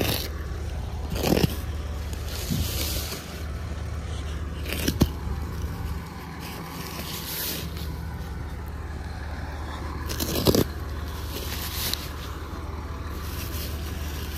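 Plastic wrap on round silage bales being cut with a knife and pulled back by hand: crinkling and scraping, with a few sharp rips.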